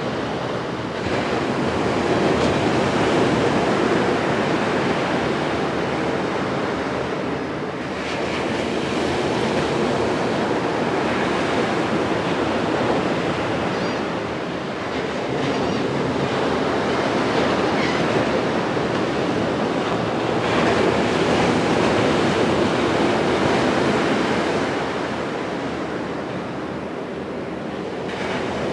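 Atlantic Ocean surf breaking on a sandy beach: a steady rushing wash that swells and eases every several seconds as waves come in.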